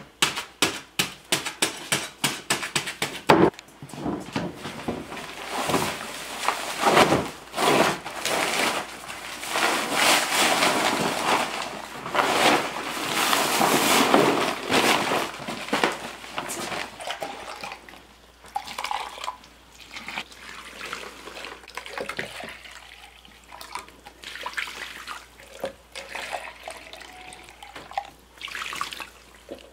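A bag of dry concrete countertop mix is knocked open in a plastic mixing trough with a quick run of sharp knocks, then shaken empty with a long rushing pour of powder. Near the end, water starts to pour from a plastic jug into a measuring container.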